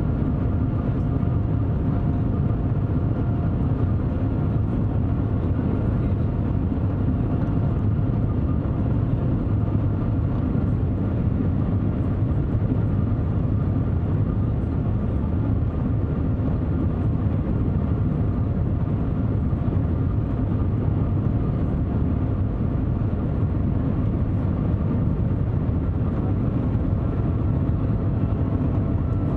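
Steady rumble of air and running noise heard inside the cabin of the Shanghai Maglev, a Transrapid magnetic-levitation train, travelling at speed, with a faint steady whine over it.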